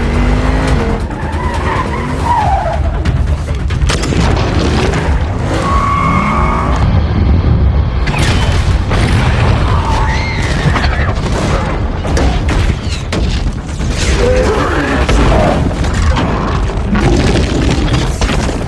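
Action-film battle sound effects: a car engine and tyre skids, booming explosions and many heavy impacts over a constant low rumble, with music underneath.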